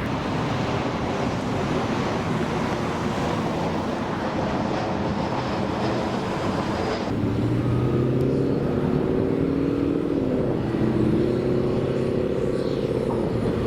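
Steady rushing noise, then about halfway through an abrupt switch to an engine running with a wavering hum.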